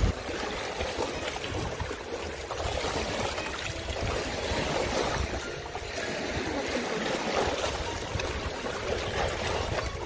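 Lake water lapping and trickling among wet shoreline boulders, a steady washing noise.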